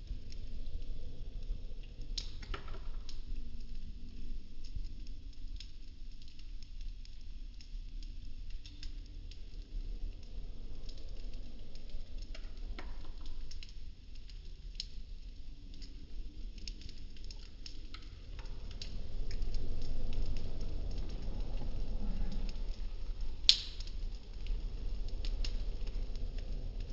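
Burning popsicle-stick model house: thin wooden sticks crackling, with many scattered small pops and one louder sharp pop near the end. A low rumble of flame rises for a few seconds in the second half.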